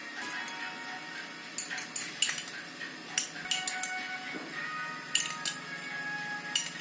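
Background music with steady sustained notes, crossed by sharp metallic clinks, a handful of them, like utensils or dishes knocking together.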